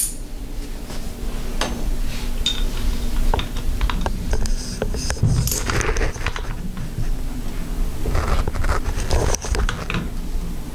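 Hand ratchet clicking in several short runs as it tightens the 6 mm Allen bolt holding the damper rod in a Harley-Davidson 39 mm fork tube, driven through a cut-down Allen key in a socket, with light clinks of the tool against metal.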